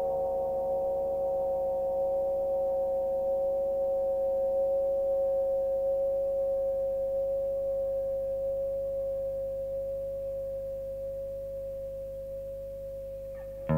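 Electric guitar notes sustained as a long, smooth reverb tail from a Prismatic Reverb pedal: steady pure-sounding tones that hold, then slowly fade over the last several seconds. Fresh guitar notes start just at the end.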